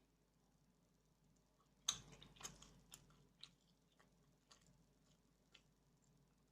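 Faint, sharp clicks and taps: one crisper click about two seconds in, a quick scatter of lighter ticks right after it, then a few single ticks spaced out.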